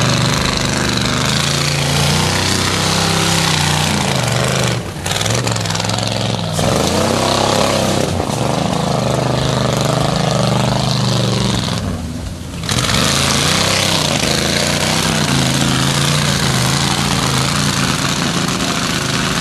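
Lifted 4x4 truck's engine revving hard as it churns through deep mud, its pitch rising and falling, with the spinning tires throwing mud. The revs drop briefly about five seconds in, again soon after, and near the middle before it powers on.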